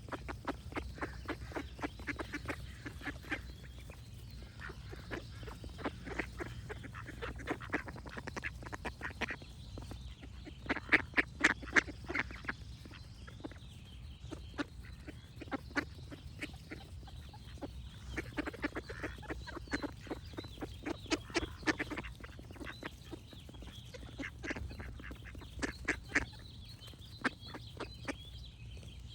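Ducks quacking in rapid runs of short quacks, coming in clusters with brief lulls, loudest about eleven seconds in. Faint birdsong is behind them.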